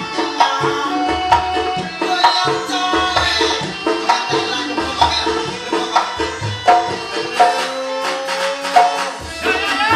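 Javanese gamelan music with kendang hand-drum strokes keeping a steady beat under ringing pitched metal tones.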